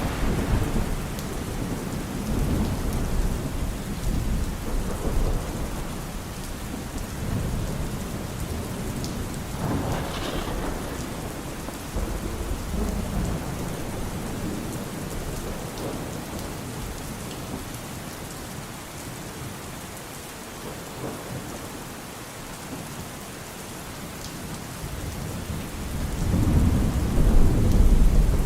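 Steady rain falling, with rolling thunder rumbling. A rumble fades at the start, a lighter one comes about ten seconds in, and a louder one builds near the end.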